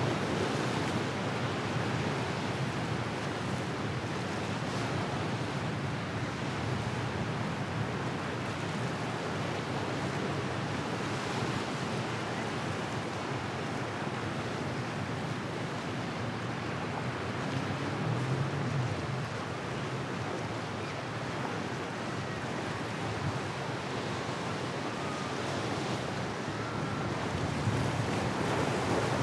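Steady rushing of wind and breaking waves, with wind buffeting the microphone.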